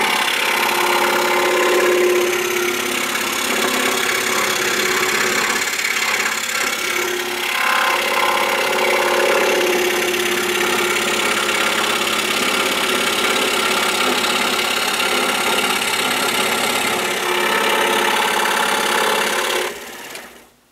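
Excalibur scroll saw running steadily, its number 3 reverse-tooth blade cutting through a wooden board. Near the end the saw is switched off and falls silent.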